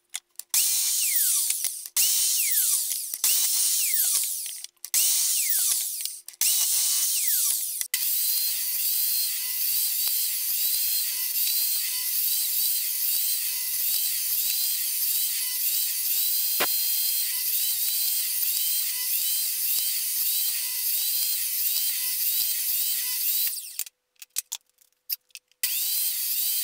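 Power saws cutting scrap wood. First comes a series of short cuts on an Evolution Rage 3 mitre saw, each ending with a falling whine as the blade winds down. About eight seconds in, a Ryobi table saw starts running steadily through a long grooving cut, stops briefly near the end, then runs again.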